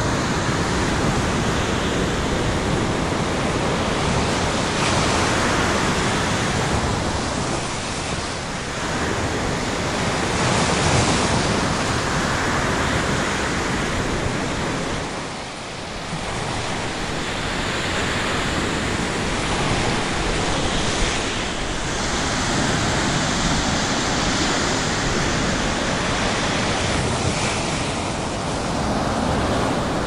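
Ocean surf breaking and washing up on a beach: a continuous rush of waves that swells and eases, with a brief lull about halfway through.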